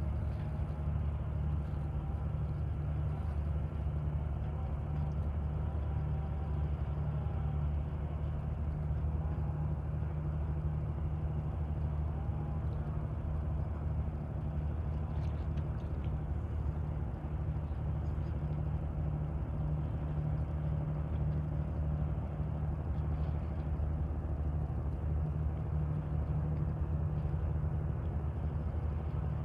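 Deep, steady drone of a river boat's diesel engine, running evenly without change.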